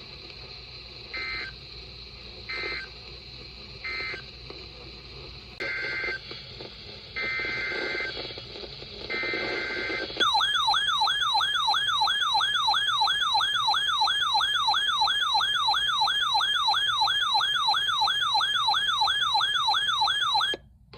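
Emergency Alert System data bursts between two weather-radio warnings: three short end-of-message bursts, then three longer SAME header bursts about a second each, each a buzzy two-tone digital signal. Then a loud warbling siren-like alert tone, about three warbles a second, runs for about ten seconds and cuts off just before the end.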